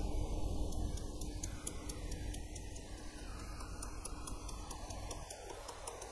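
Light, quick taps of a soft-faced mallet on a thin metal strip held in a bench vise, about four taps a second, as the strip is bent into an elastic folder for a presser foot. A steady low hum runs underneath.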